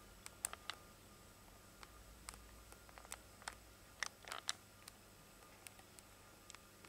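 Quiet room with faint, irregular small clicks and ticks, a quick cluster about four seconds in.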